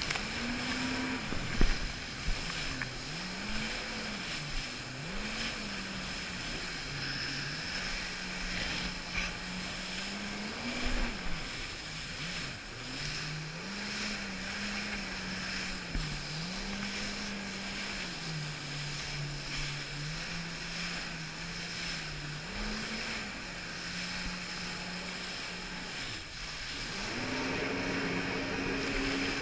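Jet ski engine running, its pitch rising and falling again and again with the throttle and then climbing and holding higher near the end, over a steady rush of spray and wind. A few sharp knocks in the first couple of seconds and once more about eleven seconds in.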